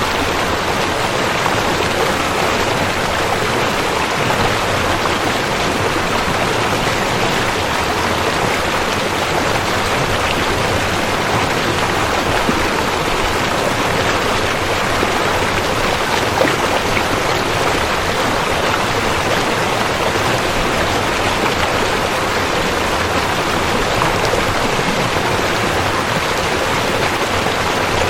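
River water rushing steadily, an even, unbroken roar of flowing water.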